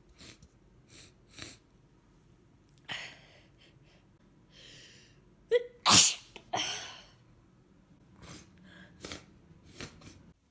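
A woman with a congested head cold sniffling, drawing a breath that catches, then sneezing loudly once about six seconds in, followed by more sniffs.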